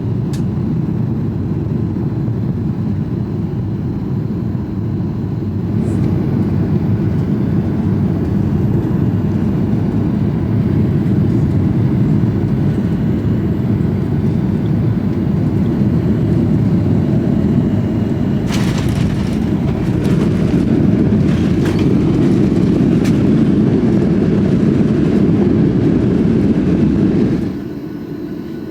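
Boeing 737-800 heard from inside the cabin while landing: a loud, steady low rush of engines and airflow, with rattling and knocks coming in about two-thirds of the way through. Near the end the noise drops off suddenly as the aircraft slows on the runway.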